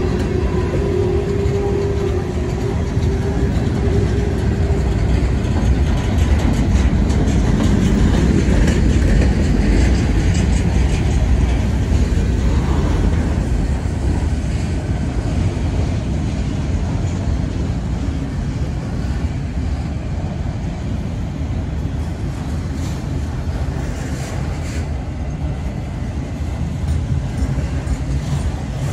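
Freight cars (boxcars and autoracks) rolling past at speed: a loud, steady rumble of steel wheels on rail with clicks and clanks from the rail joints. A steady tone sounds for the first few seconds and fades out.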